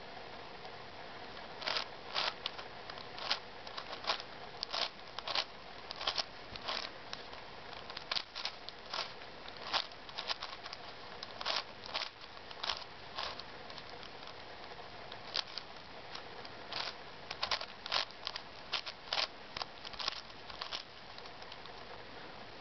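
Plastic layers of a hexagonal dipyramid 5x5x5 twisty puzzle clicking and clacking as they are turned by hand, in quick irregular runs of turns with a pause of a couple of seconds just past the middle, over a steady faint hiss.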